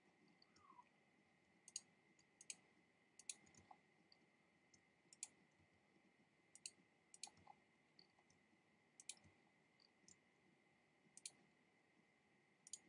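Faint computer mouse clicks, single or in quick pairs at irregular gaps of about a second, made while erasing stray anti-aliasing pixels one by one with an eraser tool.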